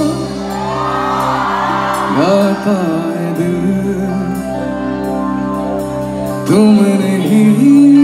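A live band plays while a male singer sings into a microphone: held, bending sung phrases over electric guitars, keyboard and a drum kit with cymbal hits. A long held vocal note starts late on.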